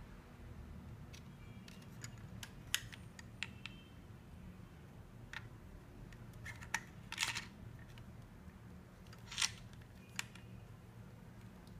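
A Haze portable vaporizer handled in the hands, giving scattered clicks and taps as a metal mouthpiece stem is fitted into its body, three of them sharper than the rest. A low steady hum lies underneath.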